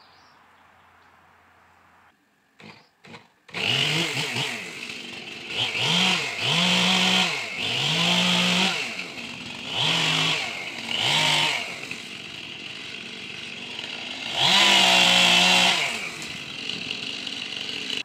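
Gas chainsaw's two-stroke engine starting after two brief sputters about three seconds in, then idling and revving up to full throttle about six times, the longest near the end, as it makes the first cut into a cedar trunk.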